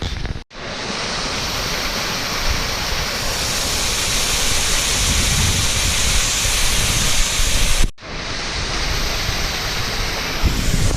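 Spring-fed waterfall with water pouring out of the rock, making a loud, steady rush, with wind rumbling on the microphone. The sound drops out for an instant twice, about half a second in and near eight seconds.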